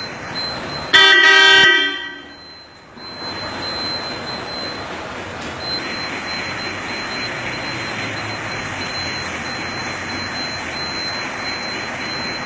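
Horn of a modified HMT 5911 tractor sounding one short, steady blast about a second in, over a steady background noise.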